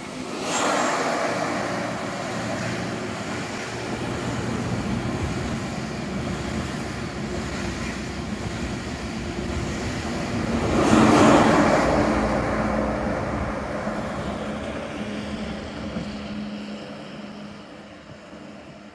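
An ICE high-speed train passing through the station at speed beneath the bridge: a rush of wheel and air noise that swells to its loudest about eleven seconds in, then fades to a steady hum as it runs away. A regional railcar arriving on another track adds to the noise.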